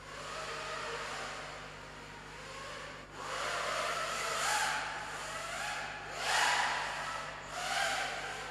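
Racing quadcopter's four 2300kv brushless motors spinning 5-inch props: a whine that rises and falls in pitch with the throttle, surging loudest about four and a half, six and a half and eight seconds in.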